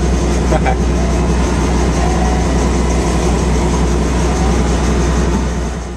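Helicopter engine and rotor noise heard from inside the cabin: a steady low drone, fading out just before the end.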